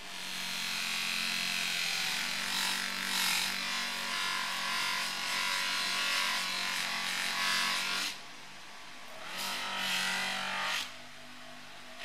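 Abrasive rubbing against a workpiece by hand: one long stretch of about eight seconds, a short pause, then a second stretch of about a second and a half.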